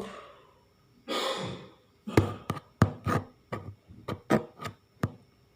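Things being handled on a hard surface: a short rustle about a second in, then a run of irregular knocks and taps, two or three a second, some with a dull thud.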